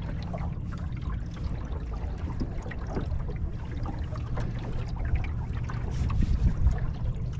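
Small waves lapping and splashing against the wooden hull of a CLC Skerry sailboat under way, with many small irregular splashes. Wind rumbles low on the microphone throughout and swells about six seconds in.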